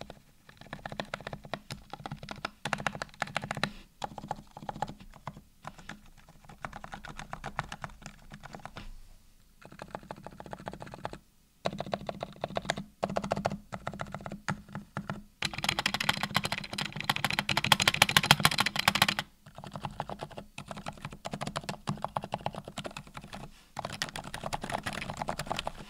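Typing on a Glorious GMMK Pro custom keyboard fitted with TTC Red Silent V3 silent linear switches, lubed with Krytox 205g0 and filmed: runs of soft, dense keystrokes broken by short pauses, with a faster, louder flurry a little past the middle.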